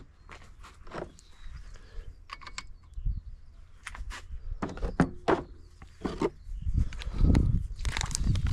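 Irregular clicks and knocks of metal hand tools being handled at an outboard's propeller, with a busier, louder run of knocks about seven seconds in.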